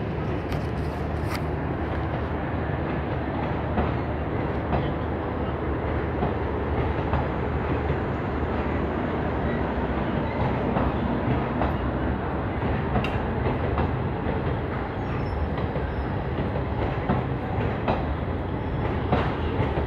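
Indian Railways passenger coaches rolling past along a platform: a steady rumble of steel wheels on the rails, with irregular clacks as the wheels cross rail joints.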